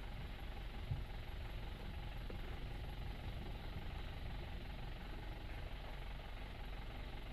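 Steady low rumble of a running vehicle, with one soft thump about a second in.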